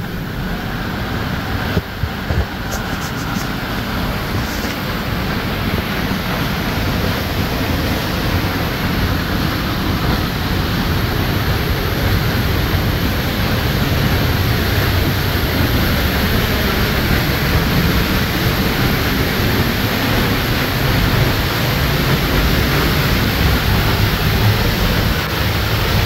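Steady, loud rush of a waterfall heard close up, with spray and moving air blowing on the microphone, slowly getting louder as the walk goes on.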